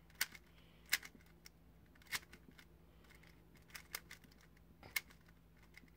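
GAN 356 Air SM magnetic 3x3 speedcube being turned by hand while its corner cutting is tested: a handful of sharp, faint clicks about a second apart as the layers turn and snap into line.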